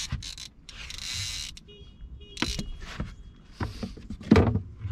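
Knocks and clatter of handling in a metal boat, with short bursts of hiss early on and a loud low thump about four and a half seconds in.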